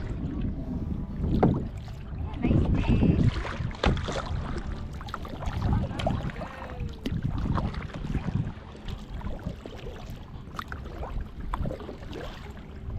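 Kayak being paddled: irregular paddle strokes and water sloshing against the hull, with wind rumbling on the microphone.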